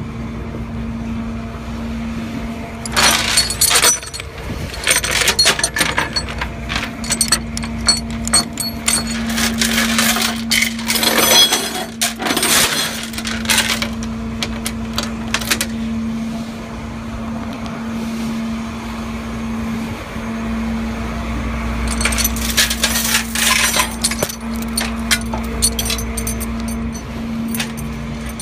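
Broken motorcycle pieces, plastic and glass, clattering and scraping as they are handled on the road. The clatter comes in a long spell followed by a shorter one near the end, over a steady low hum.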